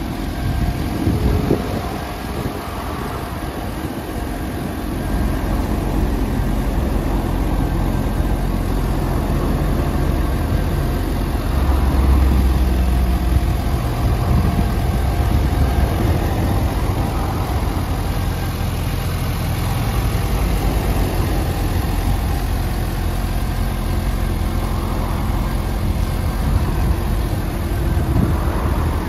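Suzuki GSX-S750's inline-four engine idling steadily.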